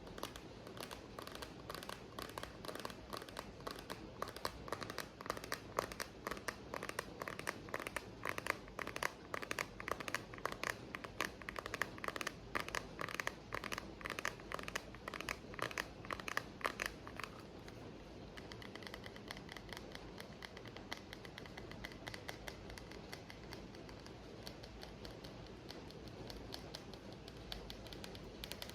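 Rapid, continuous tapping on an object, several light taps a second, over a steady rain sound. The tapping turns softer about seventeen seconds in.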